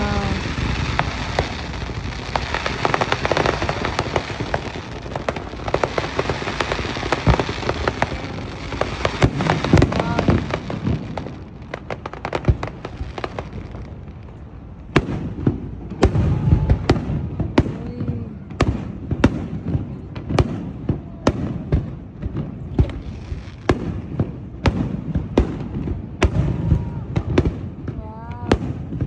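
Aerial fireworks going off: for the first ten seconds or so a dense, continuous crackle of many shells bursting together, then after a short lull a run of separate sharp bangs, about one or two a second.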